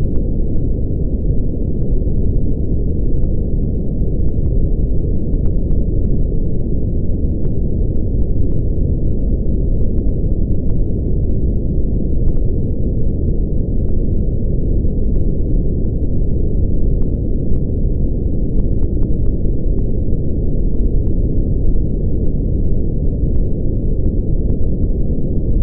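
Synthetic brown noise: a steady, deep rumble with no breaks or changes, strongest in the lows and dying away above the middle range.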